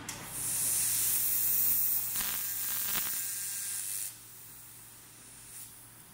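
The assist-gas jet of a 1000 W fiber laser cutting head hisses loud and high for about three and a half seconds as the beam works into 8 mm carbon steel plate, with sparks thrown back over the plate as in a pierce. Just after four seconds in it drops to a fainter steady hiss.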